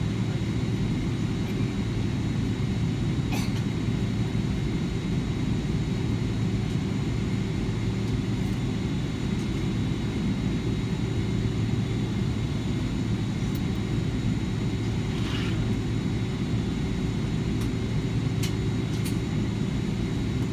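Airliner cabin noise while taxiing to the gate: a steady low rumble with a faint, steady high whine, and a few faint clicks.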